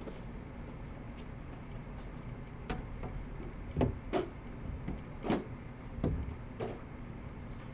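Cardboard hobby boxes being pulled from a case and set down: about half a dozen light knocks and scrapes over a steady low background hum.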